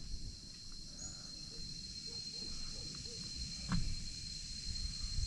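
Steady high-pitched insect drone in open countryside, with a low rumble underneath and a single soft knock about three-quarters of the way through.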